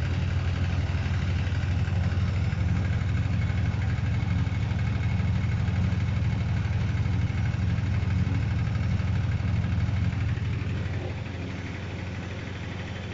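Privileg 810 SE washing machine running with a steady low hum. The hum eases and drops in level about ten seconds in.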